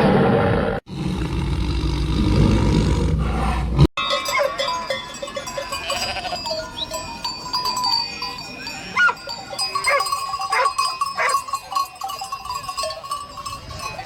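A deep animal roar for the first few seconds, cut off abruptly. Then a flock of livestock bleating, with many bells clanking and ringing.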